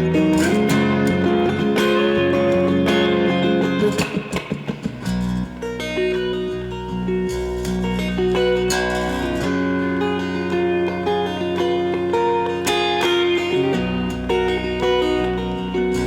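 Instrumental section of a song with no singing: plucked-string notes over sustained low bass notes. About four seconds in, the loudness briefly pulses rapidly for about a second before the playing settles again.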